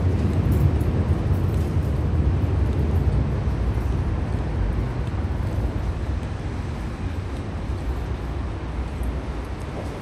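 Low vehicle rumble with road-noise hiss, slowly fading as it passes away.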